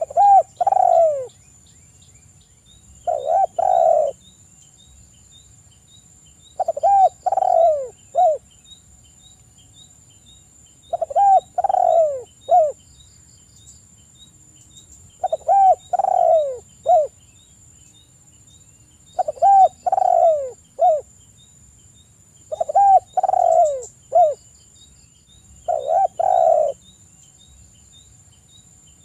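Spotted dove cooing: eight phrases of two or three coos, the last note short, repeated about every three and a half seconds.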